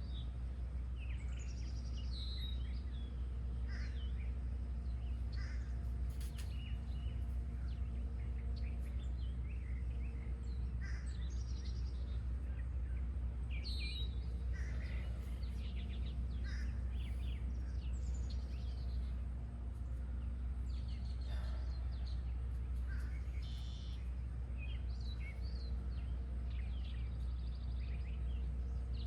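Several wild birds calling and chirping, with short, scattered calls throughout, over a steady low rumble.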